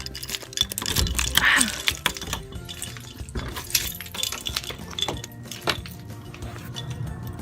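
A bunch of keys jangling and clicking as a door is locked, over background music.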